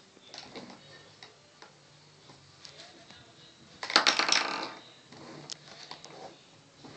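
Light clicks and knocks from a plastic toy shopping cart being handled, with a rapid plastic clatter lasting under a second about four seconds in.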